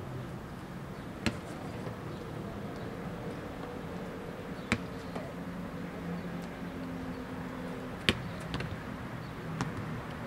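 A few sharp, short knocks, a few seconds apart, over a steady low hum.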